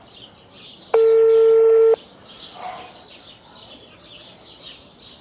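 Mobile phone ringback tone on speaker: one steady beep lasting about a second, starting about a second in, the sign that the called phone is ringing. Birds chirp faintly in the background.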